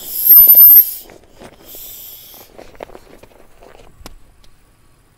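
Aerosol spray can hissing in two short bursts, the first louder and about a second apart from the second, followed by faint rustling and handling clicks.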